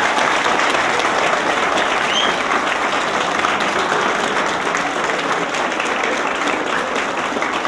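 A roomful of people applauding: dense, steady clapping at an even level.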